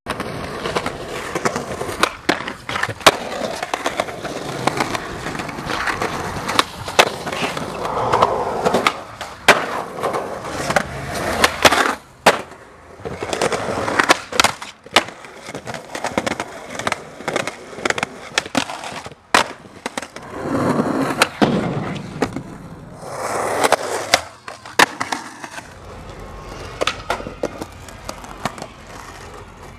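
Skateboard wheels rolling on concrete, broken by many sharp clacks of the board popping and landing.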